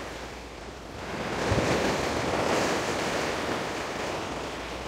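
Sea waves washing against the rocks of a breakwater, swelling about a second in and staying louder, with wind on the microphone and a brief low thump as the swell comes in.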